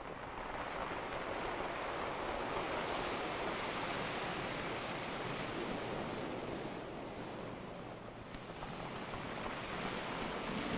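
Ocean surf: a wash of noise that swells for several seconds, eases about eight seconds in, then builds again.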